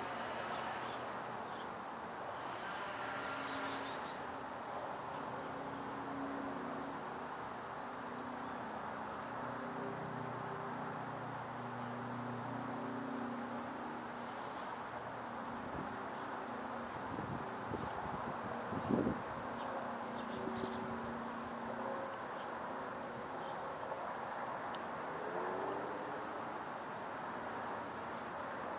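Crickets trilling steadily in a thin high-pitched tone over a low background rumble, with a brief low thump about two-thirds of the way through.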